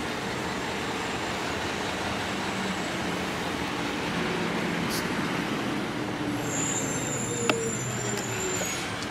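Road traffic going by: a steady rush of road noise that swells slightly in the middle, with one sharp click about seven and a half seconds in.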